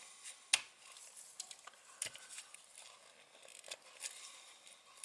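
Faint handling sounds of small plastic kit parts: light rustling with a few sharp clicks, the loudest about half a second in.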